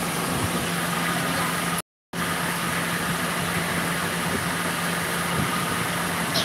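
A steady machine hum over an even hiss, cut by a brief total dropout about two seconds in.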